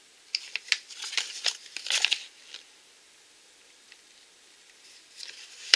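Crinkling and rustling of a paper catalogue being handled and searched through: a busy run of crisp rustles for about two seconds, a pause, then more rustling building near the end.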